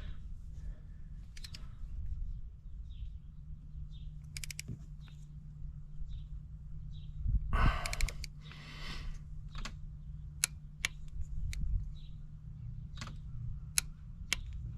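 Ratchet of a torque wrench clicking in short strokes, with some knocks of tool handling, as a spark plug is tightened to 15 foot-pounds. A steady low hum runs underneath.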